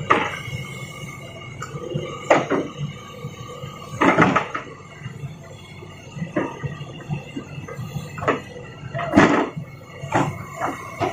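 Stones knocking and clattering as a toy excavator loads rocks into a toy dump truck: a series of irregular knocks, the biggest clatters about four and nine seconds in.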